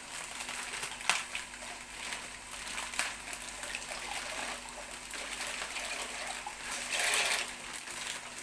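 A pot of pasta water at the boil, bubbling and hissing, with a few sharp clicks and a louder rush of water about seven seconds in.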